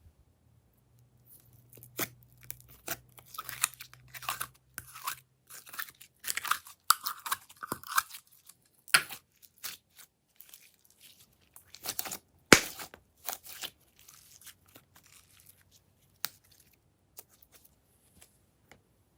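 Irregular crackling and crunching clicks from slime being handled, busiest in the first half and again around twelve to thirteen seconds in, with one sharp loud click about twelve and a half seconds in.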